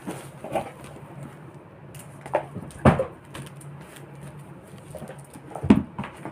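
Foam packing sheet around a boxed wall clock being handled and turned over: a few short sharp rubs and knocks, the loudest about three seconds in and near the end, over a steady low hum.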